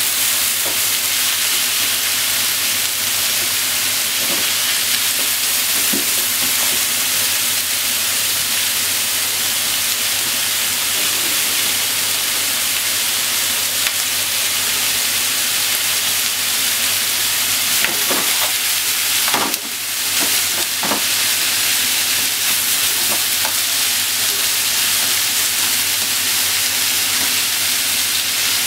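Pork and vegetables sizzling steadily in a frying pan as they are stir-fried, with faint clicks of long cooking chopsticks stirring against the pan now and then. The sizzle dips briefly about two-thirds of the way through.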